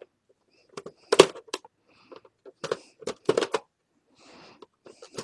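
Plastic housing of an Epson PictureMate photo printer being prised open with a flat screwdriver: a string of sharp, irregular clicks and cracks as the snap-fit cover clips let go, the loudest about a second in.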